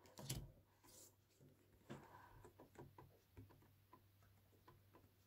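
Near silence in a small room, broken by a few faint, short clicks and rustles in the first three seconds or so as paper flashcards are handled and swapped.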